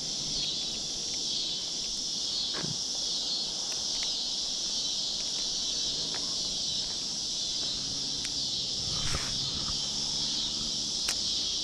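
Steady, high-pitched chorus of insects chirring in the creekside brush, with a few soft clicks and rustles scattered through it and a faint low drone coming in over the last few seconds.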